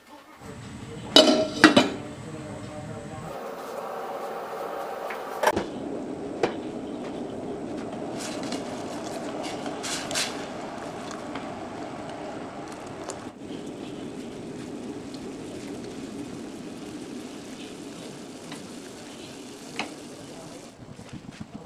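Sugar syrup in a stainless steel pot on the stove: a couple of sharp metal clinks about a second in, then a spoon stirring the liquid and knocking against the pot now and then, and the syrup bubbling steadily at the boil.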